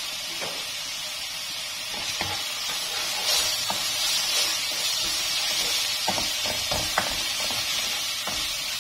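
Ground spice paste and canned beef corned beef sizzling in hot oil in a wok, stirred with a metal spoon that clicks and scrapes against the pan now and then. The sizzling grows a little stronger about three seconds in.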